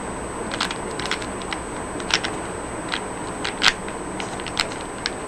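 Plastic clicks and clacks of a Rubik's Cube with its corner pieces removed, edges and centres only, as its layers are twisted by hand: about a dozen irregular sharp snaps, the loudest a little past halfway.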